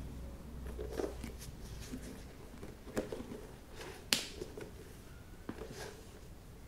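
A white flat shoelace being threaded and pulled through the eyelets of a leather Nike Dunk High sneaker, with soft rustling of lace and fingers on the shoe and scattered light clicks and taps. The sharpest tick comes about four seconds in.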